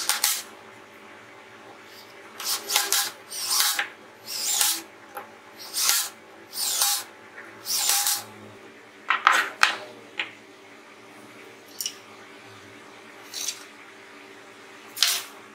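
Cordless DeWalt drill-driver driving screws into plywood in a series of short trigger bursts, about eight in the first ten seconds. A few short knocks follow, and one more brief burst near the end.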